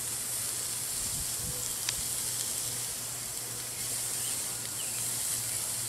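Ribeye steaks sizzling on a gas grill turned up high: a steady hiss, with one light click about two seconds in.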